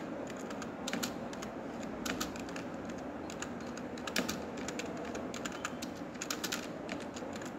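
Typing on a computer keyboard: irregular keystroke clicks, some in quick runs of several keys.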